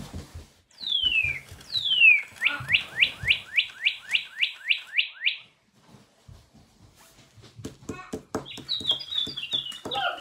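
Animatronic singing-bird toy playing recorded birdsong: two long falling whistles, then a fast run of about a dozen falling chirps, about four a second. After a short pause comes a string of clicks, then a warbling high trill near the end.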